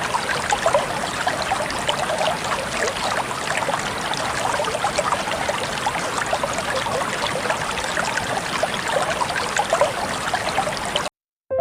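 Water rushing and splashing at a waterfall and its stream, a steady dense splashing that cuts off abruptly near the end. A soft piano chord starts just after.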